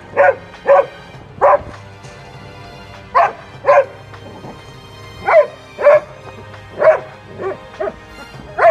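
A dog barking at a snake, about eleven short, loud barks at uneven intervals, some coming in quick pairs.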